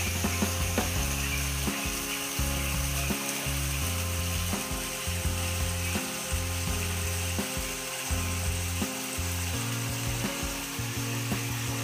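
Steady, dense high buzzing of insects in forest undergrowth, with scattered small ticks, over a low hum that shifts in pitch every second or so.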